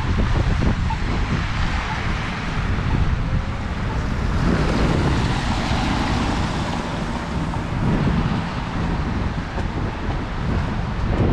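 Wind buffeting the binaural microphones over a steady hiss of rain, with street traffic swelling as a vehicle passes about halfway through.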